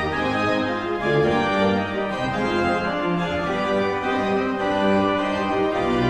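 Background organ music: slow, sustained chords changing every second or so.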